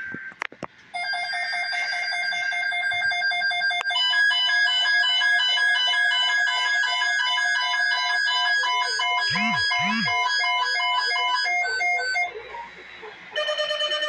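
Electronic emergency-alert attention tone, a rapid pulsing pattern of several pitches, starting about a second in and stopping about two seconds before the end. Near the end a different alert tone starts.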